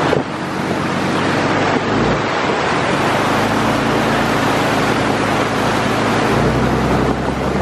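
Floodwater rushing and spraying as a lifted truck ploughs through it, throwing a bow wave off the tyres, with the truck's engine running steadily under the water noise.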